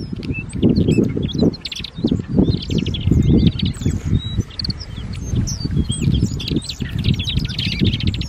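Flock of alpine accentors calling: many short chirps and a few brief rapid trills, overlapping throughout, over a loud, uneven low rumble.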